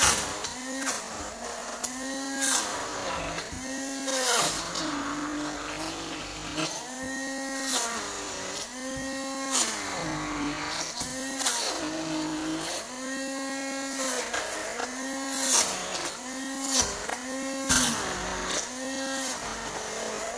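Electric mixer motor whining as it beats batter, its pitch rising and falling again every second or so as the load changes, with sharp clicks of the beaters striking the bowl.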